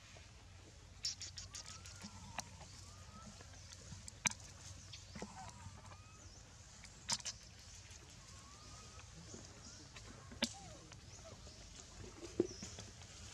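Quiet outdoor ambience with faint, short chirping calls that rise and fall, and a handful of sharp clicks or snaps, a quick run of them about a second in.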